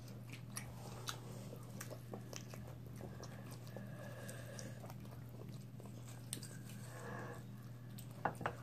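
Faint biting and chewing of sauced chicken wings, with small scattered wet clicks and smacks, over a steady low hum.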